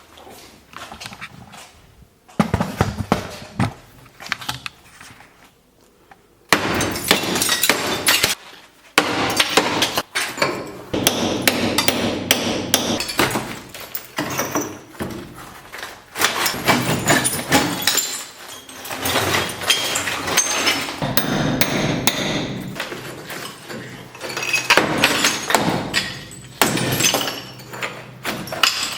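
Fireplace brickwork and masonry being chipped out: a few scattered knocks at first, then from about six seconds in long runs of rapid hammer blows, with brick and ceramic pieces breaking and clattering down.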